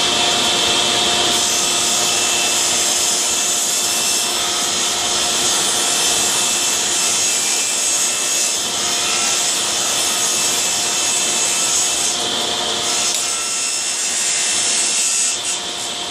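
Table saw running and cutting a rabbet along the edge of a thin panel fed on edge against the fence, a steady blade whine over the noise of the cut, a little quieter near the end.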